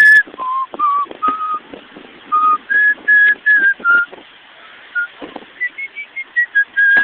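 A person whistling a tune: a run of clear, held notes stepping up and down in pitch, with short gaps between them.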